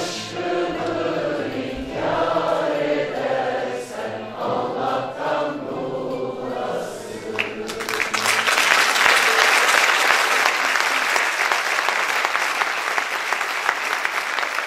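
Turkish classical music choir and ensemble singing the closing phrases of a song; just past halfway the singing stops and the audience starts applauding, and the applause keeps going.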